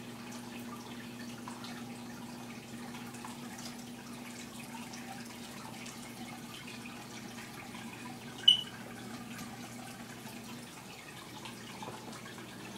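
Aquarium filter running: water trickling and dripping over a steady low hum. One sharp click about eight and a half seconds in.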